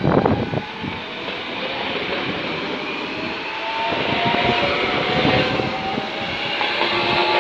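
Coupled SNCF TER double-deck electric multiple units passing at speed. Wheels on rail make a steady rush, with a few loud clacks in the first half second and a faint whine slowly rising in pitch.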